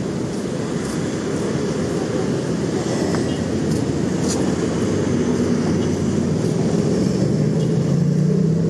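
Street traffic: a steady rumble of passing vehicles, with one engine's hum growing louder over the last couple of seconds as it draws close.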